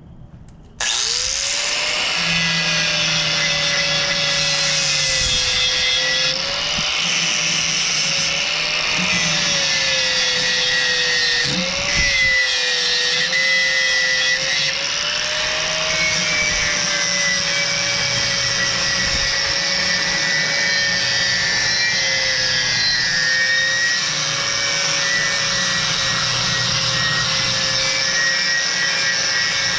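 Angle grinder with a paint-stripping disc switched on about a second in, spinning up and running steadily as it grinds paint off steel to bare metal for welding, its motor pitch wandering slightly.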